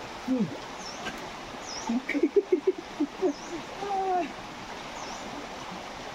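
Shallow forest stream running with a steady wash of water, a high chirp repeating several times over it. About two seconds in comes a short burst of rapid low voice-like sounds, then a couple of longer glides.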